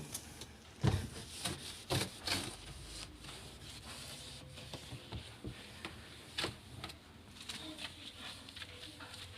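Cleaning sounds while drying a freshly washed kitchen: scattered light knocks and taps, the loudest about one and two seconds in, with soft rubbing between.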